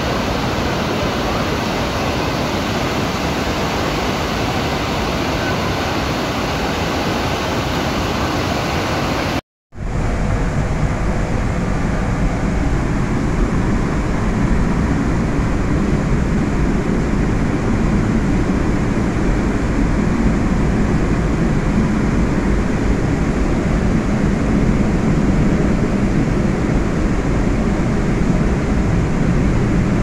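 Steady rushing noise of the Iguazu Falls, a huge volume of water crashing down close by. About a third of the way in it cuts out for a moment and comes back deeper and heavier.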